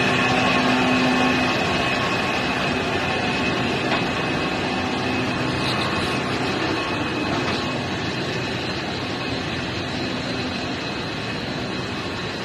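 Large multi-cylinder diesel engine running, a loud, dense, steady mechanical din with a few constant whining tones in it; it slowly grows quieter.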